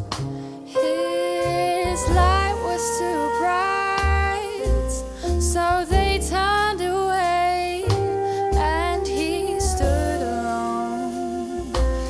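A small band playing an instrumental passage: a melody line bending between notes over low bass notes, with piano and drums underneath.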